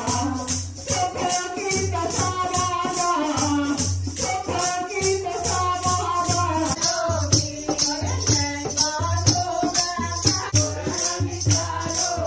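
Group of women singing a Hindu devotional song, with a woman leading on a microphone. A rattle keeps a steady beat of about three strokes a second.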